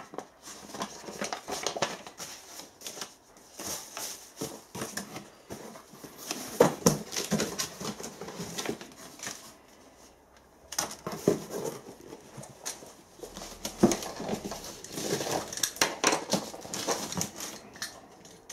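Paper and cardboard packaging being handled: a leaflet rustling and a cardboard box and its packing moved about, with scattered taps and knocks. A short lull comes about ten seconds in.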